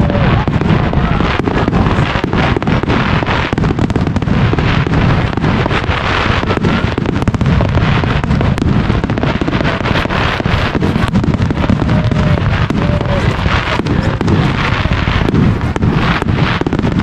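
Fireworks display: aerial shells bursting in rapid, continuous succession, many sharp bangs and crackles running into one another.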